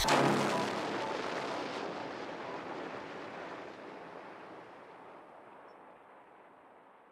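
The rap beat's final hit trailing off as a noisy wash that fades away over about five seconds, growing duller as it dies out.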